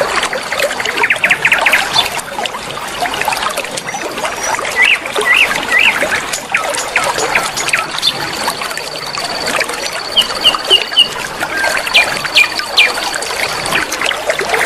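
River water flowing and trickling steadily, with songbirds chirping over it in short, quick calls. A thin, high, steady trill starts and stops a few times.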